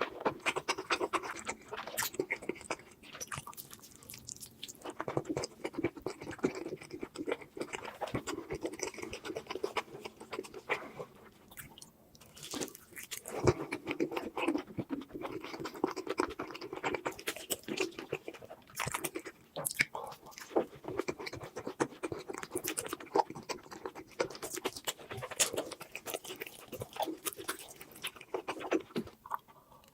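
Close-miked eating sounds: steady chewing with a rapid run of wet clicks and smacks, pausing briefly about twelve seconds in and again near the end.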